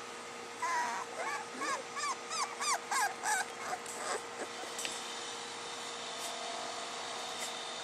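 Soft coated wheaten terrier puppies whimpering: a quick run of about nine short calls, each rising then falling in pitch, about three a second, which stops about halfway through.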